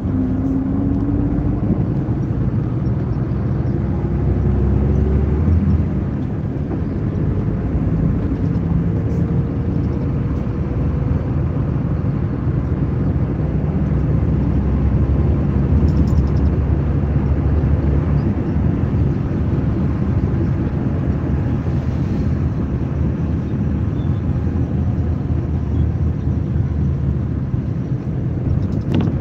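Scania K94 bus's rear-mounted five-cylinder inline diesel engine running under load as the bus drives. Its pitch rises over the first several seconds, with a brief drop in level about six seconds in before it pulls on steadily.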